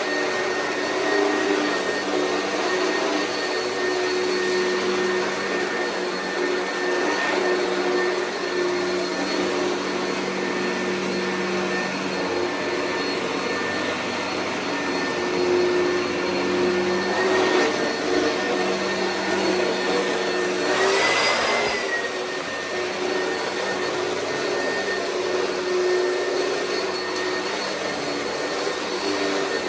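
Oreck vacuum cleaner running steadily: a whining motor over a rushing airflow. About two thirds of the way through, the whine briefly rises in pitch with a surge of hiss, then settles back.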